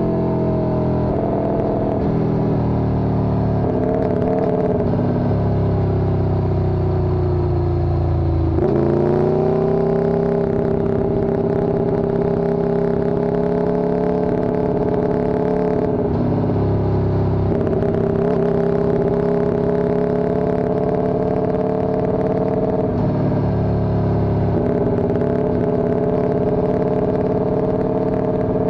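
Motorcycle engine running under way. Its pitch falls slowly for about eight seconds, jumps up sharply, then holds fairly steady.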